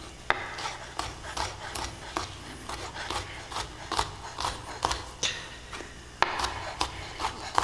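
Chef's knife mincing garlic cloves on a wooden cutting board: a run of quick knife taps on the wood, about three a second, with a short break near the end before the chopping picks up again, a little louder.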